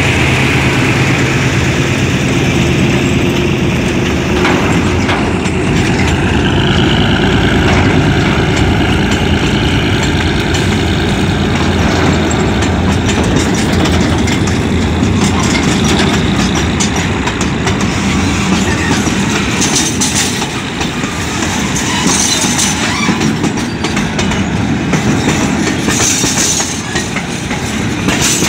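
Freight train passing close by: the GE diesel locomotive's engine hum fades within the first several seconds, then hopper and tank wagons roll past with a heavy steel-wheel rumble. Later on the wheels clack over rail joints.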